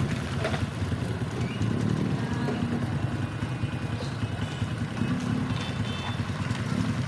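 Motorcycle engines running at low speed, a steady low rumble.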